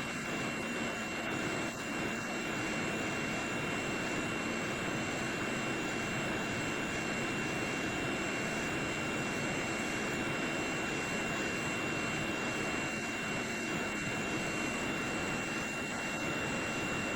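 Hot air rework station blowing steadily through a wide nozzle, an even rush of air with a steady high-pitched whine from its blower, as it heats a laptop motherboard around the GPU for a BGA solder reflow.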